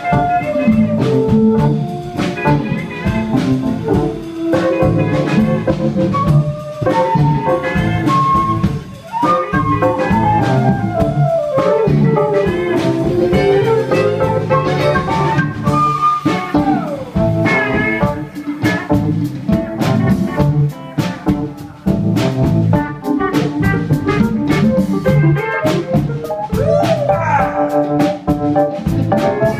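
Live band playing an instrumental passage in a bluesy folk-rock style: drum kit, electric bass, electric guitar and pedal steel guitar, with a flute playing over them.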